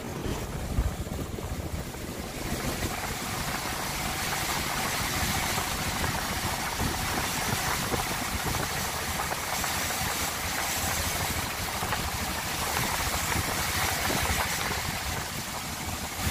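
A vehicle driving on a rain-soaked, partly flooded road: a low engine rumble under a steady hiss of tyres on water and rain, the hiss growing stronger about two and a half seconds in.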